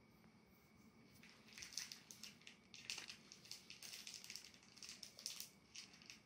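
Faint crinkling and clicking of a small object being handled and worked in the fingers, starting about a second in and going on in short irregular crackles.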